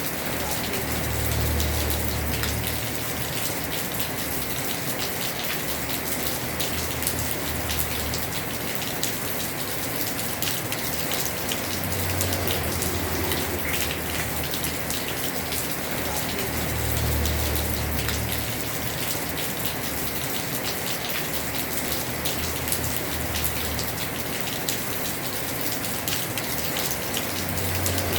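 Heavy rain falling on a house roof: a steady hiss of rain with a dense patter of individual drops. A low rumble swells and fades several times underneath.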